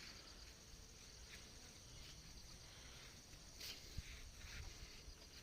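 Near silence: faint outdoor background with a faint high steady hum and a single soft knock about four seconds in.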